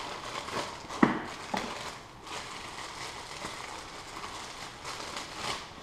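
Handling a small cardboard box and its contents: rustling, with a sharp knock about a second in, a softer one half a second later and another near the end.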